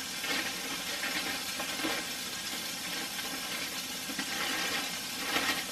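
Frozen burger patties sizzling steadily in a cast iron skillet over low heat, with faint knocks and rustles of frozen packages being moved in a freezer drawer.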